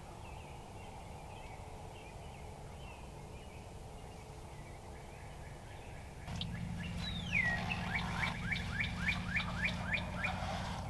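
Dawn chorus in woodland. A wild turkey gobbles in the distance in the second half. A songbird gives one long downward-gliding whistle, then a quick run of short falling notes, about five a second, and this run is the loudest sound.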